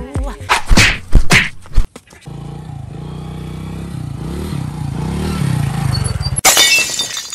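Several sharp hits in the first two seconds, then a small motorcycle engine running for about four seconds, its pitch rising and falling with the revs. Near the end comes a sudden crash with breaking-glass shattering.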